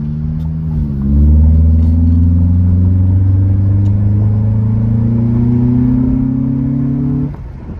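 Honda K24 2.4-litre four-cylinder accelerating hard under load, its induction noise loud through a short-ram intake with velocity stack and an HKS muffler, heard inside the cabin. The engine grows louder about a second in and its pitch climbs slowly as the car pulls, then the sound drops away suddenly near the end.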